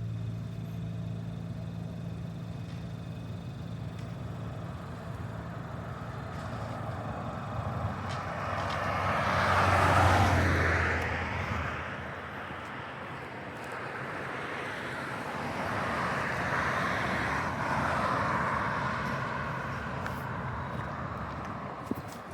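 Road traffic: a car passes close by about halfway through, swelling and fading, and a second vehicle passes more faintly later, over a steady low engine hum.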